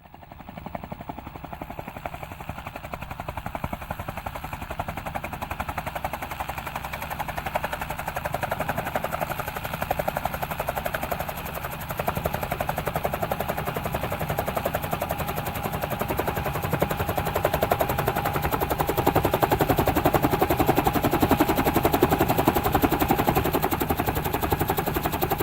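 Helicopter rotor chop, a rapid, even beat of the blades, fading in and growing steadily louder as the helicopter comes in to land. A steady whine rises out of it past the halfway point.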